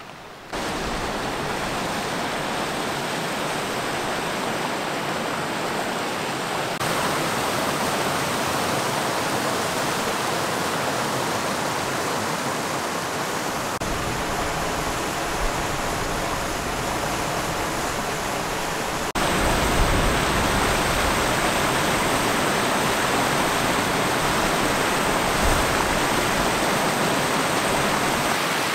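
Rushing white water of small river rapids cascading over rocks, a steady roar that jumps louder in a few abrupt steps, most of all about two-thirds of the way through.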